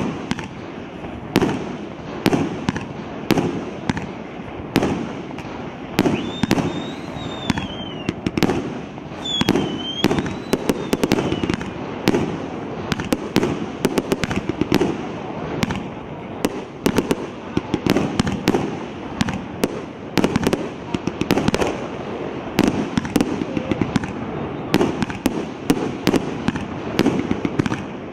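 A 49-shot, 1.5-inch fireworks battery firing shot after shot: a rapid, uneven run of sharp bangs, roughly one to two a second.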